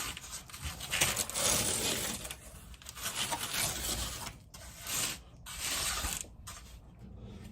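Cardboard scraping and rustling as it is dragged and shoved across the floor in several separate pulls.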